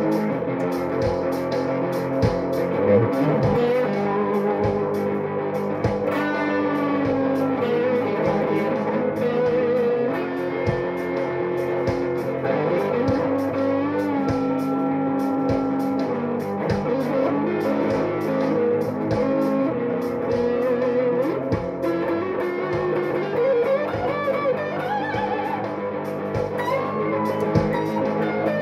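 Solid-body electric guitar playing lead lines with bent notes over a steady beat, in a bluesy style.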